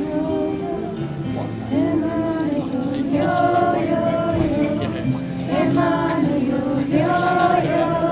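Live concert music: voices singing long, wordless melodic lines over the band's sustained accompaniment.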